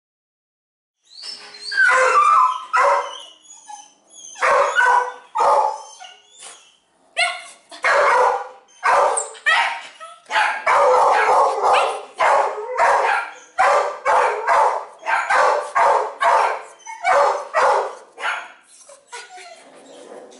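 Shelter dog barking over and over in a kennel, a run of loud barks and yelps starting about a second in and thinning out near the end.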